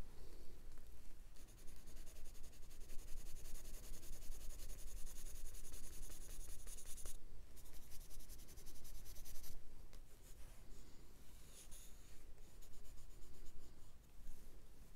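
Pencil shading rapidly back and forth on watercolour paper: a scratchy scribbling in long stretches, with a brief pause about seven seconds in and a longer break after about nine and a half seconds before it picks up again in shorter strokes.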